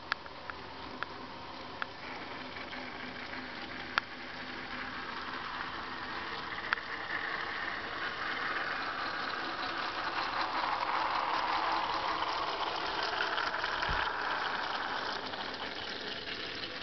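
Model railway train, a small steam locomotive hauling loaded wagons, running along the track. Its motor and wheels make a whirring rattle that grows louder from about six seconds in as the train passes close, with a few sharp clicks in the first seconds.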